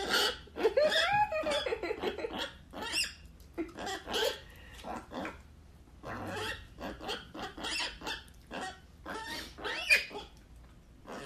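Mini pig grunting and snuffling at close range, a quick irregular run of short grunts and sniffs, with a few higher, wavering calls about a second in.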